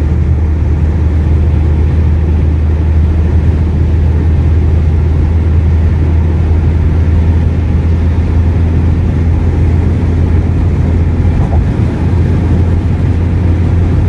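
Steady low drone of a car cruising at highway speed, with engine and tyre noise heard from inside the cabin.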